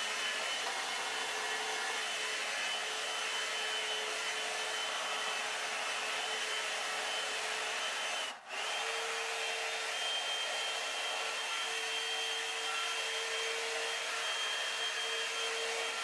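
Revlon One-Step hair dryer brush running, a steady blowing rush of air with a fan-motor hum. It breaks off for an instant about halfway through, then carries on with the hum a little higher.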